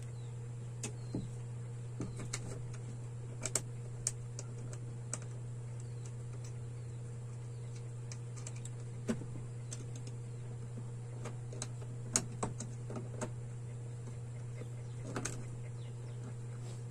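Irregular small clicks and taps of plastic parts being handled as a wall switch is fitted into its box, over a steady low hum.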